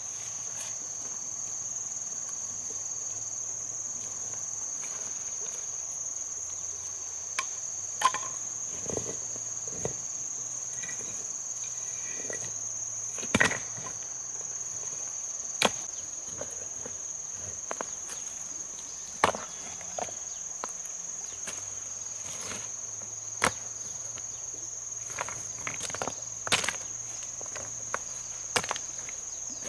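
Steady high-pitched insect trilling throughout, with scattered sharp clicks and knocks at irregular intervals.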